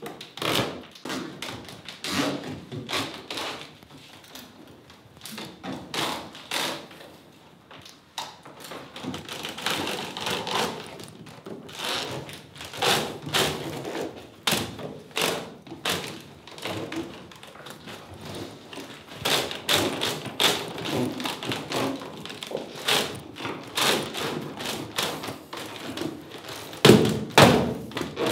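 Irregular knocks, taps and scrapes of wood and tool against a woven chestnut-splint basket as its rim is worked with a punch and other hand tools, with a heavier thump near the end.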